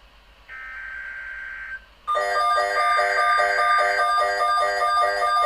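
An EAS digital header burst: a harsh, steady two-tone data screech lasting about a second. After a short gap, a louder electronic alert tone starts pulsing about twice a second, with a chime-like run of several tones.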